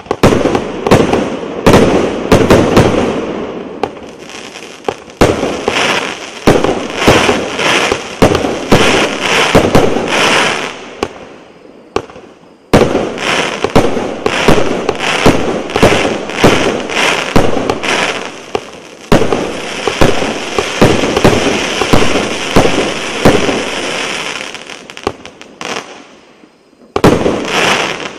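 A 1-inch, 49-shot consumer fireworks cake firing: a rapid series of shots launching and bursting in the air. The shots stop briefly about twelve seconds in and die down for a moment near the end before firing again.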